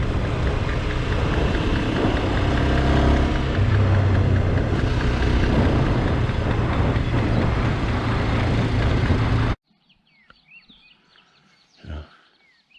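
SYM NHT 200 motorcycle being ridden: the engine running under a heavy rush of wind on the microphone. It cuts off suddenly about ten seconds in, leaving faint bird chirps and a single soft thump near the end.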